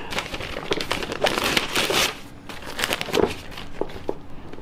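Paper and plastic packaging crinkling and rustling as it is pulled off a cardboard box by hand, in irregular bursts with a few sharp clicks in the second half.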